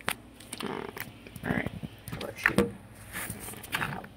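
Irregular knocks and rustling of a handheld phone being moved and handled, several short bumps in a row.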